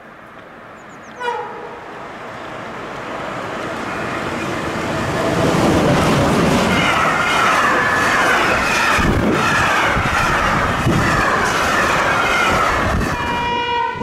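A train horn gives one short blast about a second in. Then a train comes up and passes close by at speed: its running noise builds to a loud steady rush with a falling whine and a few wheel knocks on the rail. Near the end a horn starts sounding again.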